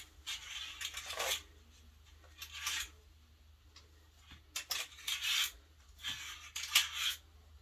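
Grommet curtain panel being threaded onto a curtain rod: fabric rustling and rubbing in short spells, with a few sharp clicks of the grommets knocking on the rod, the loudest near the end.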